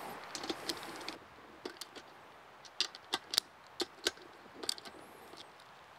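Small metal parts clicking and tapping as nuts and washers are handled and fitted onto the studs of a diesel heater's metal mounting plate: a soft scraping in the first second, then sparse, irregular light clicks.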